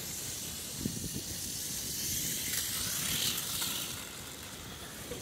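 Tamiya Mini 4WD car running on concrete, its small electric motor and gears giving a thin, high hiss-like whir that swells about three seconds in, over a steady low rumble.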